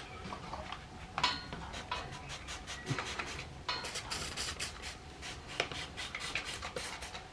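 Small metal tools and parts being handled, clinking and scraping in an irregular run of clicks and rattles.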